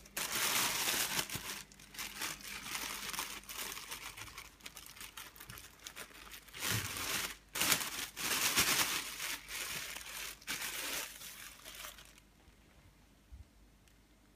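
Close, irregular crinkling and rustling in bursts, stopping about three-quarters of the way through.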